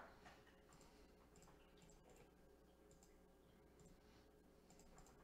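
Near silence with a few faint clicks from operating a computer, the first and loudest right at the start.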